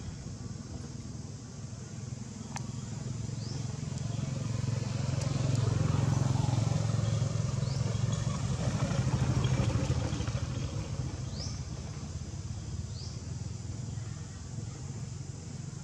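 Low engine rumble of a motor vehicle passing, growing louder for a few seconds in the middle and then fading. A few short, high rising chirps sound over it.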